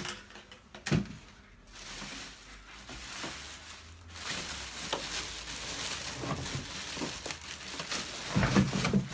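Packaging crinkling and rustling as a vacuum cleaner hose is handled and unpacked. There are two knocks in the first second, and the rustling grows louder about four seconds in.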